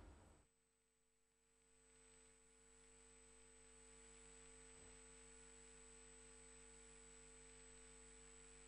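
Near silence: a faint, steady electrical hum with a thin high tone.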